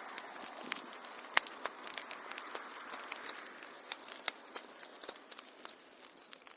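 Wood fire crackling: irregular sharp pops and snaps over a soft steady hiss, fading away near the end.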